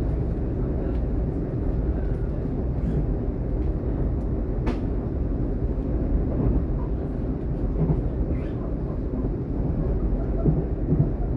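Running noise inside a DB class 422 S-Bahn electric multiple unit under way between stations: a steady low rumble, with a single sharp click about five seconds in.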